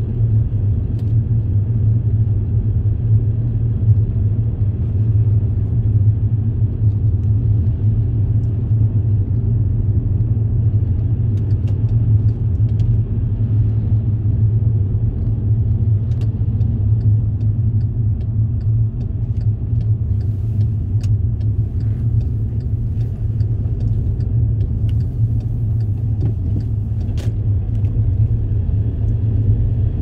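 Steady low rumble of a car driving at slow town speed, engine and tyre noise heard from inside the car, with a few faint clicks in the second half.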